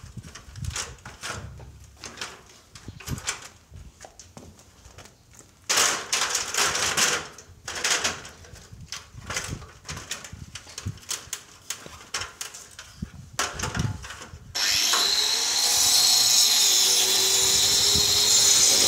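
Irregular knocks and clatter, with a louder noisy stretch about six seconds in; then, about fourteen and a half seconds in, an angle grinder starts and cuts steadily into a block wall, chasing a groove for electrical conduit, its whine wavering in pitch as the disc loads.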